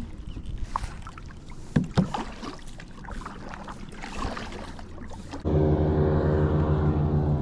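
Kayak working through shallow grass: irregular knocks, taps and rustles against the hull. About five seconds in, a loud, steady buzzing drone starts suddenly and keeps on.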